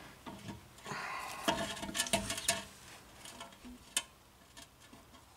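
Scattered metallic clicks and scrapes as a hand-turned brake caliper piston tool rotates and presses a rear caliper piston back into its bore, with one sharper click about four seconds in.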